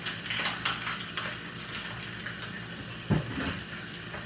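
Kitchen handling noises: a brief rustle and clatter in the first second and a single dull thump about three seconds in, over a steady hiss.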